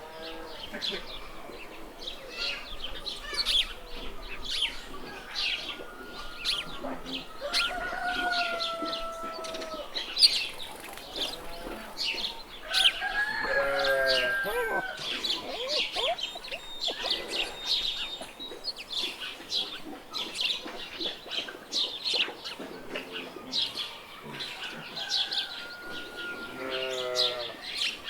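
Farmyard ambience: small birds chirping constantly, with a few longer drawn-out calls from farm animals, fowl among them.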